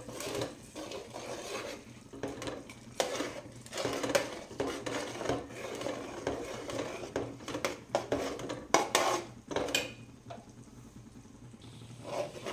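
Steel ladle stirring and scraping in a large aluminium pot of butter cooking down into ghee, in repeated strokes. There is a faint sizzle under it. The stirring eases off about ten seconds in.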